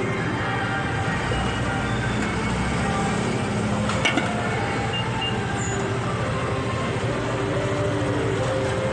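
Motorcycle engine running steadily at riding speed, with road and wind noise. A short sharp click comes about four seconds in.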